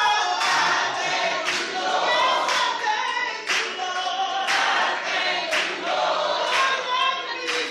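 A group of voices singing together, with hand claps keeping time about once a second.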